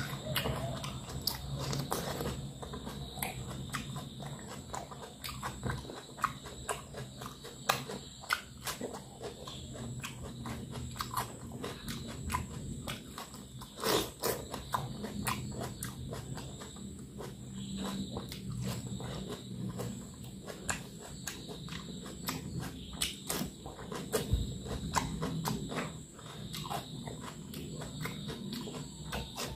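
Close-miked chewing and biting of raw tomato and cucumber slices eaten by hand, with many short irregular mouth clicks and smacks. A faint steady high tone sits underneath.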